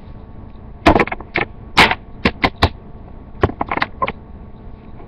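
Deck of Pokémon trading cards being handled in the hands and against the tabletop: about a dozen sharp, irregular clicks and taps, starting about a second in.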